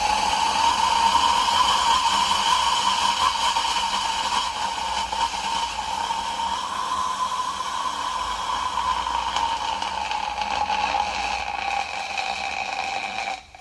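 A sugary black cat sweet burning violently in molten potassium chlorate: a loud hissing flame with a shrill whistling tone that drifts slowly downward in pitch, then stops suddenly near the end as the sugar is used up.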